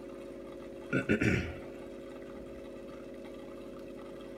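Steady electric hum of aquarium pumps running on a sump-filtered fish tank. A short voice sound cuts in about a second in.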